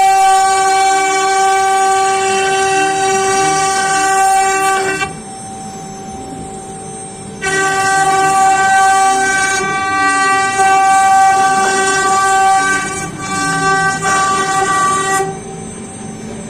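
CNC router spindle cutting a wooden door panel: a loud, steady high-pitched whine with many overtones. About five seconds in it falls to a quieter hum for a couple of seconds, then comes back, and falls away again near the end.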